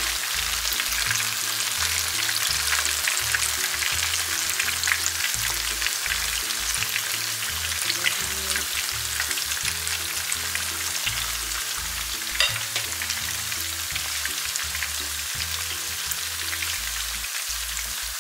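Hot oil sizzling and crackling steadily around battered banana pieces deep-frying in a pan, as more batter is drizzled in from a spoon to form crispy curly bits. There is one sharp tap about two-thirds of the way through.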